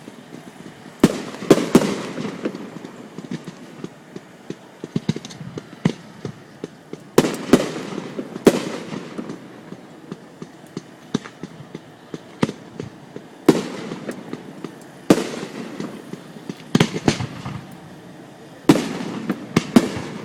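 Aerial fireworks bursting: sharp bangs, each followed by a rolling echo, coming in clusters every few seconds, with smaller crackles in between.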